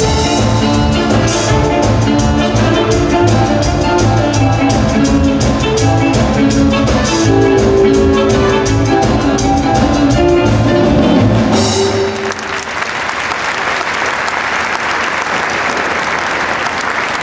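Band music with a steady drum beat, ending on a final hit about twelve seconds in, then an audience applauding.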